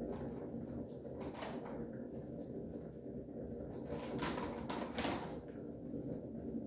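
A plastic snack packet crinkling as it is handled, in a few short bursts about a second in and again around four to five seconds in, over a steady low room hum.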